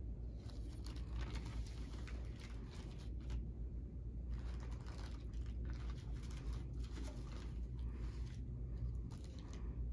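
Paper sterile wrap of a Foley catheter kit being unfolded and smoothed flat, crinkling and rustling in irregular bursts over a steady low hum.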